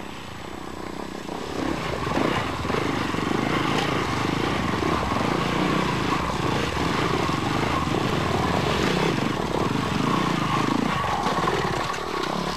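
Engine running steadily: a fast, even pulsing with a steady whine above it, growing louder in the first two seconds.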